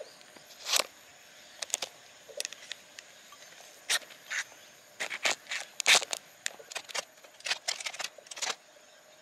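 Metal end hook of a tape measure scraped down a ferrocerium fire-starter rod: a string of short, quick scrapes at an uneven pace, the loudest about six seconds in. Used as a makeshift striker, it fails to light the tissue tinder.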